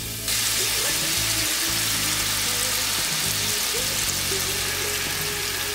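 Butter sizzling steadily as it melts in a hot frying pan, the hiss starting suddenly a moment in. Background music plays underneath.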